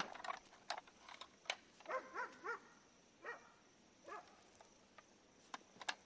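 Several short pitched animal calls, three of them in quick succession about two seconds in, among scattered sharp clicks.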